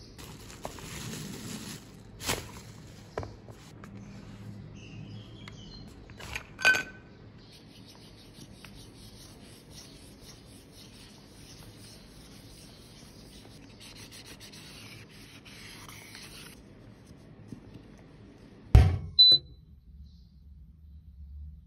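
Cling-film crinkling as it is handled, then a long spell of steady rubbing as a tissue-wrapped stick wipes a bare metal compact pan, with a sharp metallic clink about a third of the way in. Near the end come two loud thumps, the second with a short high ring.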